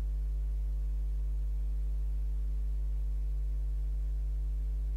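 Steady low electrical hum, like mains hum, with fainter higher overtones at an unchanging level.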